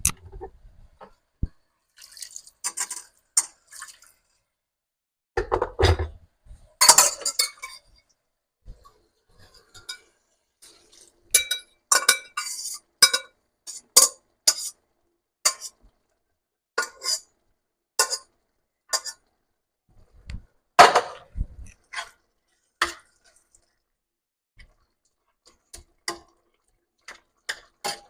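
Kitchen utensils clinking and knocking against a cooking pot, as separate clinks and knocks throughout, some ringing briefly, with a few heavier knocks. This is the sound of potato curry being stirred and tended in the pot.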